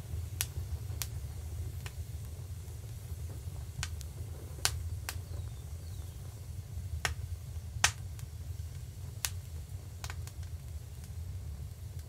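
Wood fire crackling: about a dozen sharp, irregular pops and cracks over a steady low rumble.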